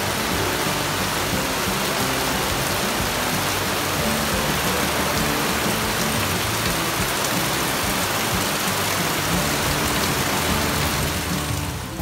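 Heavy rain pouring down in a dense, steady hiss on the ground, trees and camp canopies. It gets quieter shortly before the end.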